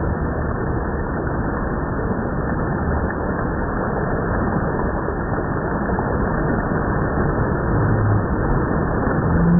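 Creek water running with a steady, even rushing.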